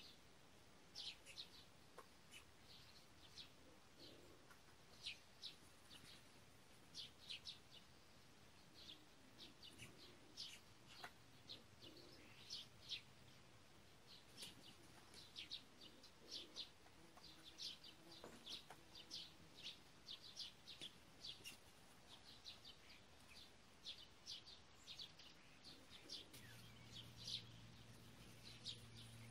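Faint birdsong: many short, high chirps from small birds, coming in quick clusters. A low steady hum comes in about three seconds before the end.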